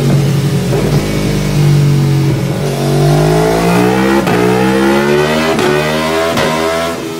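Aprilia Tuono V4 1100's V4 engine on a rolling-road dyno, pulling a power run: the revs hold for a couple of seconds, then climb steadily for about four seconds, with a few short sharp cracks along the way, before dropping away just before the end as the throttle shuts.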